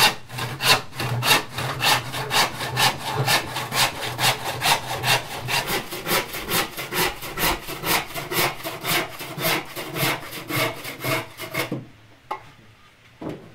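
Handsaw cutting through a wooden plank in quick, even back-and-forth strokes, stopping near the end.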